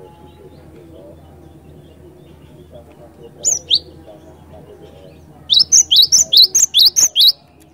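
Cinereous tit (glatik batu) calling: two sharp high notes about three and a half seconds in, then a fast run of about ten loud high notes, some five a second, near the end.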